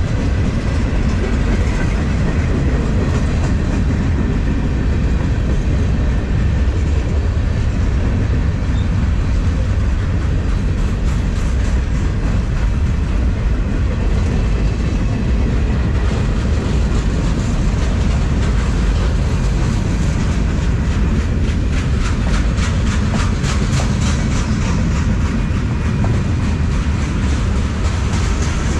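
Freight cars of a long PanAm Railways train rolling past close by, a steady heavy rumble of wheels on rail. In the last third, rhythmic clickety-clack of the wheels over rail joints grows stronger.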